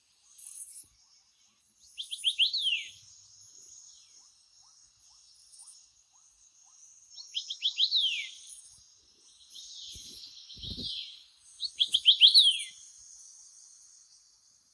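A phone tone made of recorded birdsong, from a ZTE Overture 3: a bird sings a quick run of falling chirps three times, about five seconds apart, over a faint steady high hiss. There is a short low thump just before the third phrase.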